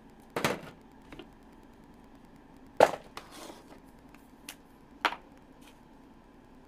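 Three sharp clicks about two and a half seconds apart, with a few fainter ticks between them; the one near the middle is the loudest.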